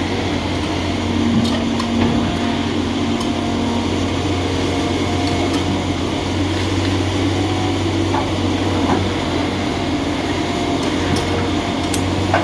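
Heavy diesel engine running steadily, with a few faint knocks.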